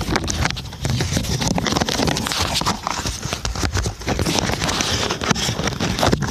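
Wind buffeting the phone's microphone in a rough low rumble, mixed with rustling, scraping and frequent clicks and knocks from the phone being handled and moved about.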